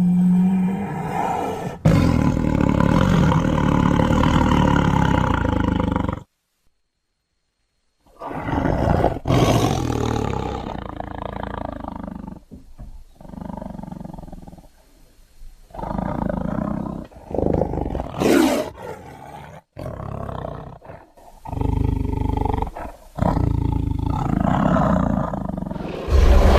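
A string of separate creature-like roars and growls, sound effects for a gorilla-like cavewoman, with a brief silence about six seconds in.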